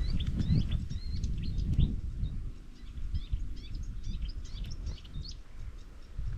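Several small birds chirping and singing in quick short notes throughout, over a low rumble that is loudest in the first two seconds and then eases.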